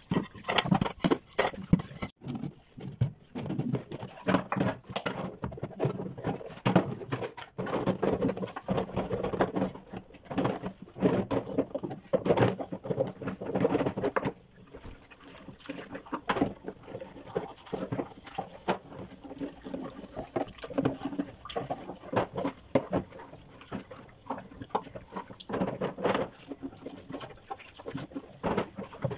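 Plastic food containers and lids knocking and clattering against each other and a stainless-steel sink as they are washed by hand under a running tap, in many irregular knocks.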